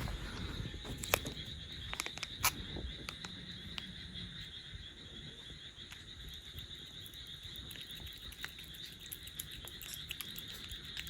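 Steady high-pitched insect trilling, with scattered light clicks and taps.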